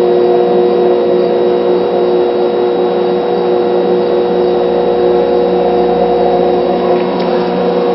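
Battery charger set to engine start, humming steadily under load as it drives current through a jar of salt water for electrolysis, with a noisy haze under the hum.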